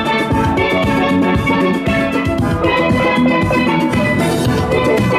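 Background music with a drum beat and bright pitched melody lines.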